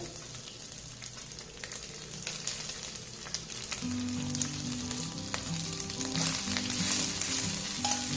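Cooked rice dropped into hot oil tempering in a steel kadhai, sizzling, with a steel spoon clicking and scraping against the bowl and pan. Soft background music with a simple melody comes in about four seconds in.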